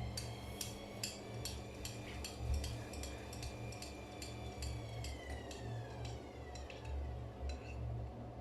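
Gorenje washing machine spinning: a low drum rumble under a motor whine that holds steady, then falls in pitch from about five seconds in. Fast, light metallic ticks run over it until near the end.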